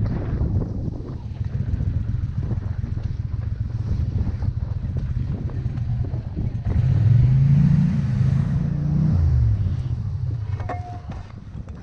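Boat motor running steadily, revving up about seven seconds in and dropping back about two seconds later.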